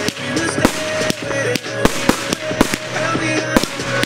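Aerial fireworks bursting and launching in quick succession, a rapid series of sharp bangs about two or three a second. Music with long held notes plays underneath.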